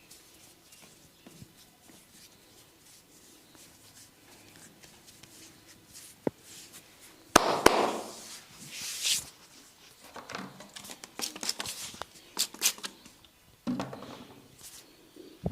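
Hands giving a head massage: soft rubbing and light ticks on hair and skin, then from about halfway sharp slaps, taps and cracks mixed with rustling, coming thickest in a quick run near the end.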